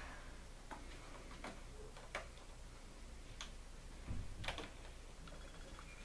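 Faint, irregular light clicks of model railroad track being fitted by hand: metal rail joiners and plastic-tied track sections tapping as they are slid together. The clicks come about every half second to second, with a slightly louder couple about four and a half seconds in.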